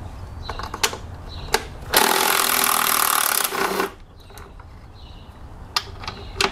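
Cordless impact wrench on a long socket extension running for about two seconds, starting about two seconds in, as it loosens an 8 mm upper intake manifold bolt. Sharp clicks before and after come from the socket being fitted onto the bolt.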